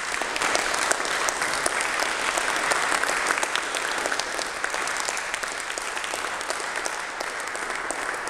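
Audience applauding, a steady patter of hand claps that eases off slightly toward the end.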